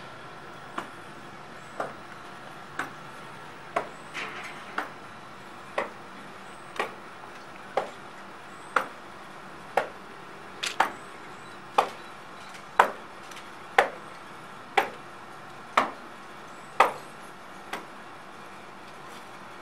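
Boot steps of a marching soldier, sharp knocks about once a second that grow louder as he approaches and stop near the end.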